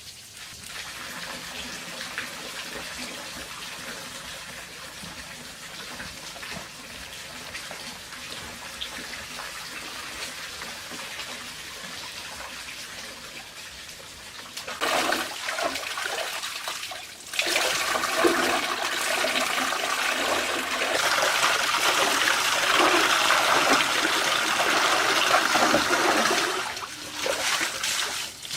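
Water flowing or splashing as a steady rushing noise, growing much louder and heavier about halfway through, with a brief dip and some breaks near the end.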